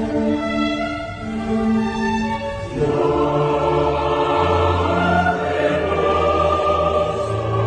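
Orchestral background music: sustained string notes, then about three seconds in a fuller choral section with a deep bass comes in and holds.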